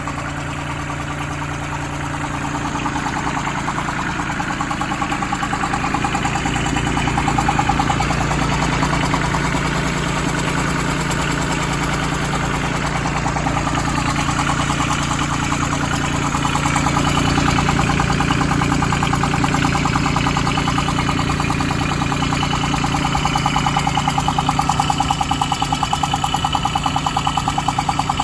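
Branson 2500h tractor's A1100 engine running steadily with a fast, regular knocking tick over the engine note. This is the unexplained noise on a new engine: the owner first suspected the rocker arms but thinks loose valve clearance would sound different.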